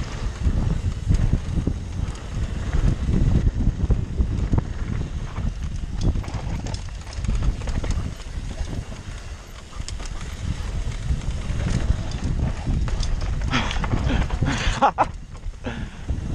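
Mountain bike riding fast down a dry dirt trail: tyres rumbling and crunching over dirt and stones, with the bike rattling and knocking over the bumps. Near the end comes a louder scraping burst.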